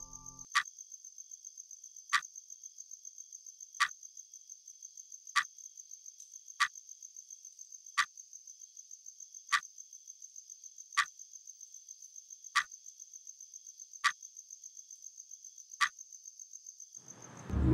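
Night ambience of crickets chirping in a steady, high, rapidly pulsing trill, with a sharp click about every second and a half that stands out above them. The crickets and clicks cut off just before the end.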